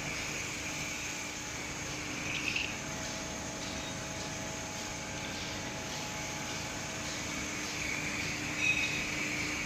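Paper napkin folding machine running with a steady hum and a faint regular clack about twice a second. There are two brief louder noises, one about two and a half seconds in and one near the end.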